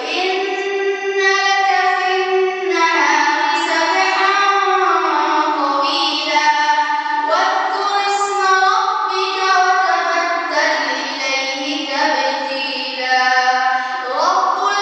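A boy chanting a melodic recitation from a book into a microphone: long held notes that bend slowly up and down, in phrases with short breaks between them.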